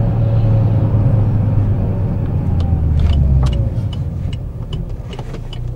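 MG6 1.8 turbo petrol engine heard inside the cabin, its low hum easing and falling in pitch as the car slows off the throttle, with a faint falling whine. From about two and a half seconds in, the turn indicator ticks steadily, about two and a half times a second.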